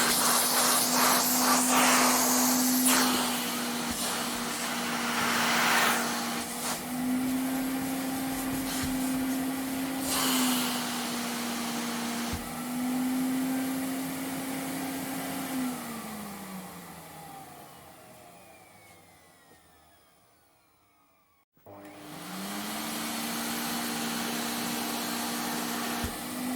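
Vacuum cleaner motor running with a steady whine over rushing airflow that swells and eases. About sixteen seconds in it is switched off and winds down, its pitch falling until it is nearly silent. About twenty-two seconds in it is switched back on and quickly spins up to speed.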